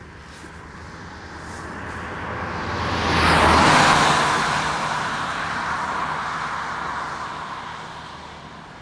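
A car driving past at speed: engine and tyre noise build, peak about three and a half seconds in with a drop in pitch as it goes by, then fade away down the road.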